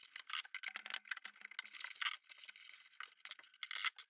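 Faint, irregular small clicks and rustles of hands handling electrical cable cores and sleeving at a Hive receiver's wiring backplate.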